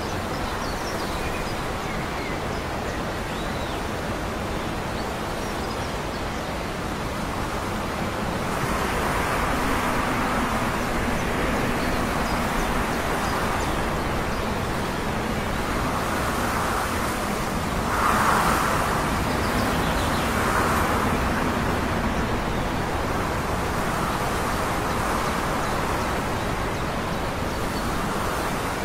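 Steady wind-like noise with the distant rumble of a vehicle that swells from about a third of the way in, peaks a little past the middle and fades near the end.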